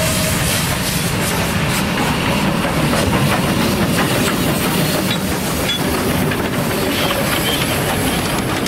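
Class 298 narrow-gauge steam locomotives passing close by: loud hissing steam with the clatter of running gear and wheels. The last of a steam whistle blast cuts off just after the start.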